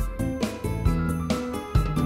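Background music with a steady beat of about two strikes a second under held instrumental notes.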